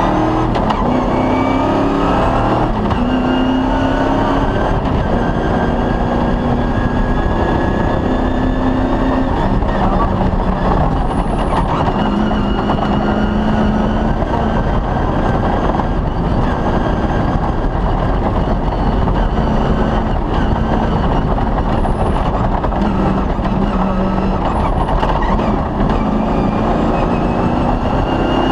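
Cross-country rally car's engine running hard on a special stage, its pitch repeatedly climbing and dropping with throttle and gear changes, over a constant dense noise.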